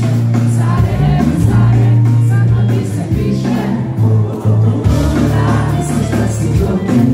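A live band playing loud music with a heavy bass line in a concert hall, heard from inside the audience. A singer's voice comes through at times.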